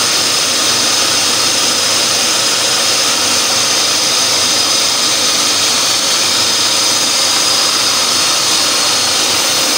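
Electric food processor motor running at full speed, a loud steady whir as its blade grinds raw chicken, bread, onion and spices into a paste.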